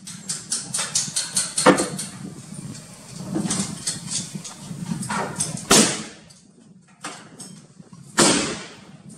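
Black-powder muzzle-loading guns firing on a shooting range: three sharp reports, about two seconds in, near the middle and near the end, each with a short echoing tail. Fainter rapid clicks come in the first two seconds.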